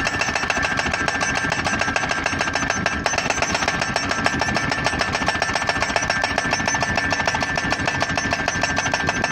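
Hydraulic pile-driving hammer of an Ingetrol Poledrill post driver striking a photovoltaic mounting post with rapid, even blows, over a steady ringing tone.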